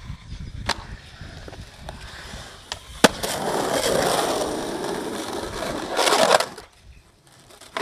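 Skateboard wheels rolling over rough concrete, with a sharp clack about three seconds in and a louder rush of rolling noise peaking around six seconds before it falls away.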